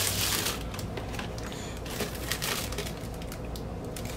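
Plastic shrink-wrap and a clear record sleeve crinkling and rustling as an LP jacket and vinyl record are handled. A louder burst of rustling comes at the start, then lighter crinkles and small taps.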